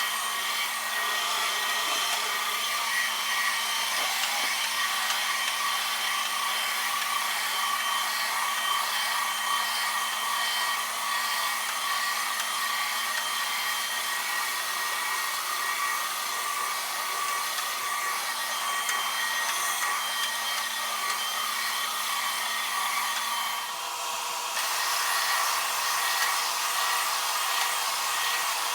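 Professional carpet-cleaning machinery running steadily: a continuous airy whoosh with a steady high whine. The sound dips briefly about four-fifths of the way through, then carries on with a slightly changed tone.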